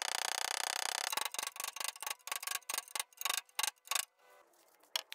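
Ball-peen hammer rapidly tapping the metal collar at the joint of a shovel's handle and socket. The strikes run together at first, then come separately at about five a second and stop about four seconds in.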